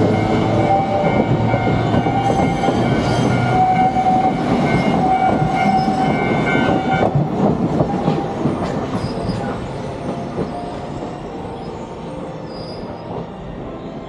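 Sangi Railway Hokusei Line 762 mm narrow-gauge electric train running over a level crossing, wheels clattering over the rail joints with some squeal. About seven seconds in, the noise begins to fade as the train moves away.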